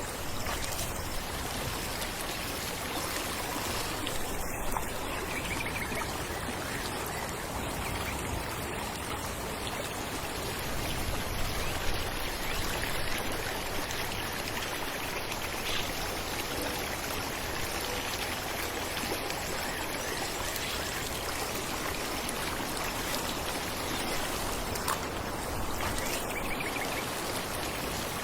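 Falling water rushing steadily and evenly.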